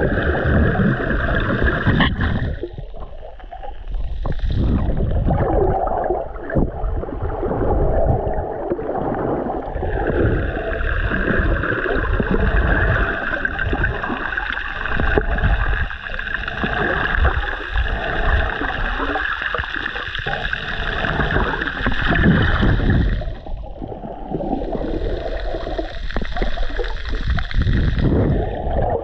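Water sloshing and gurgling around a submerged camera, muffled as heard underwater, with an irregular surging low rumble from the water moving as the swimmer goes along.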